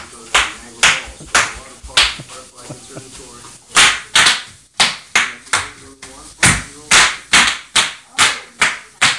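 Bubble wrap being popped: a long run of sharp, separate pops, about two a second, with a short lull near the middle.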